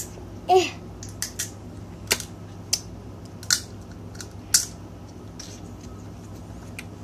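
Crab shell being cracked and picked apart by hand: a run of sharp, crisp snaps every half second to a second, dying away after about five seconds, over a steady low hum.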